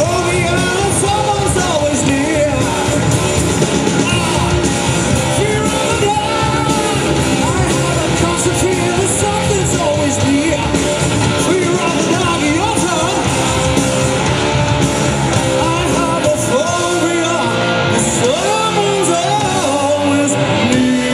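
Live rock band playing loud: electric guitars and drums with a singer's voice over them.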